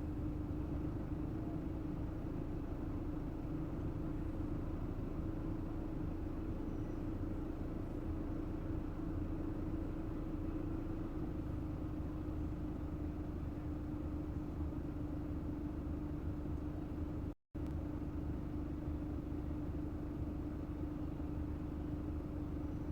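Steady background hum with a constant low tone and rumble, broken by a brief dropout to silence about seventeen seconds in.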